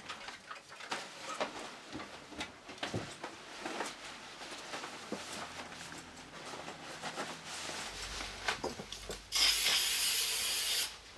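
Clothes rustling and small knocks as a jacket is pulled on, then a loud aerosol spray hiss lasting about a second and a half near the end.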